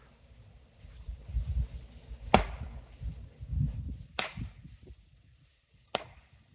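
Axe chopping into firewood: three sharp strikes about two seconds apart, the first the loudest.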